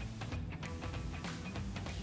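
Quiet background music: a guitar tune of short plucked notes at a steady pace.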